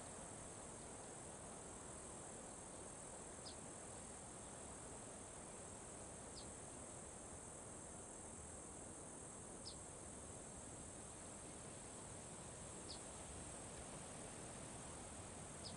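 Faint, steady, high-pitched drone of insects, with a short high chirp repeating about every three seconds.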